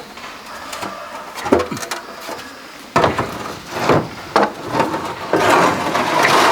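Bamboo poles knocking, a few sharp knocks, then a longer rasping, scraping noise near the end.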